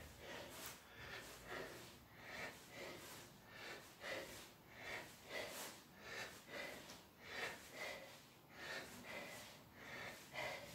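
A man breathing hard from exertion in quick, rhythmic breaths, about two a second, fairly faint.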